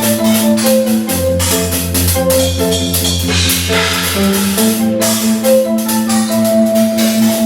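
Drum kit and cymbals played in a steady groove over music with held bass notes and a melody of short, mallet-like notes. The bass chord changes about a second in and again about four and a half seconds in.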